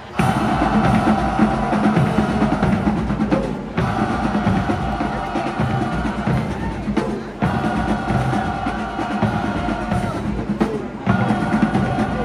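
Marching band playing: brass holding loud sustained chords over a busy drumline of bass and snare drums. The band comes in suddenly at the start, and the chords break off and re-enter about every four seconds.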